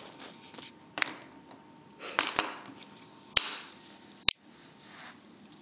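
Plastic wrestling action figures knocking against a hard tiled floor as they are played with: several sharp clacks, the two loudest about a second apart near the middle, with handling rustle between.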